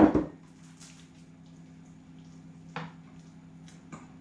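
A silicone spatula stirring beaten egg into a thick vegetable puree in a glass bowl: soft wet squelching with a few light clicks and scrapes against the glass. A sharp knock opens it, and a low steady hum runs underneath.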